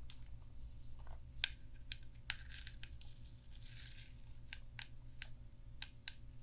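Light, gentle tapping on a brush: irregular sharp taps, roughly two a second, with a couple of brief scratchy rustles in between, over a faint steady low hum.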